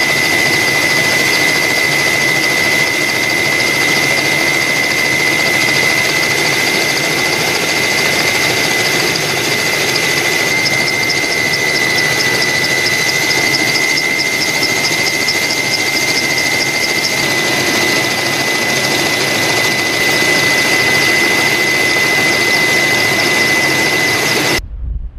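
Steady aircraft turbine engine noise with a constant high whine, cutting off abruptly near the end.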